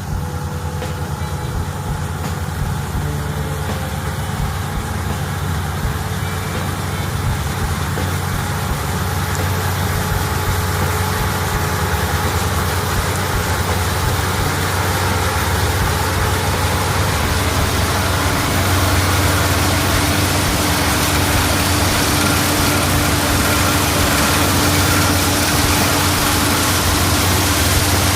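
A heavy engine running steadily with a low hum, growing gradually louder as it draws closer or works harder.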